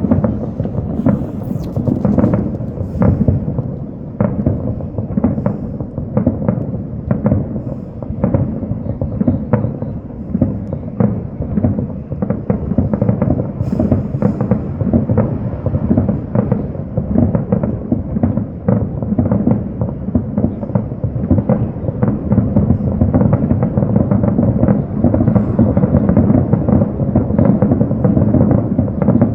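Fireworks finale: a dense, unbroken barrage of bursts, several bangs a second, overlapping into a continuous rumble.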